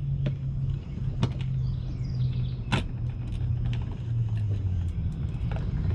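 A few sharp clicks and taps of hands working on an outdoor electrical receptacle and its hardware, over a steady low drone that drops in pitch about four seconds in.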